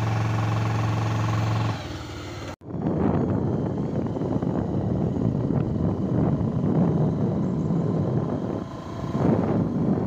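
Motorcycle engine running at a steady pitch. After a sudden cut, wind buffets the microphone over the engine as the bike rides along.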